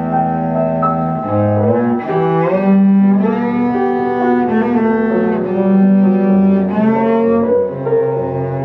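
Cello and piano playing a cello sonata: long bowed cello notes, some sliding in pitch, over piano accompaniment.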